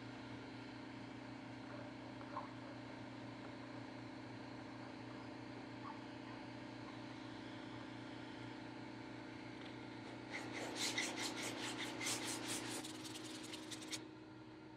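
Rapid back-and-forth hand rubbing on the wooden bowl, about seven strokes a second, starting about ten seconds in and stopping abruptly some four seconds later. A steady low machine hum runs underneath.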